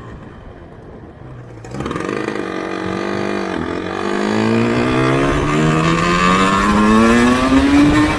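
Yamaha RZV500R two-stroke V4 motorcycle engine accelerating. It is quieter for the first second or so, then picks up, and climbs steadily in pitch in one long pull before the note drops suddenly right at the end.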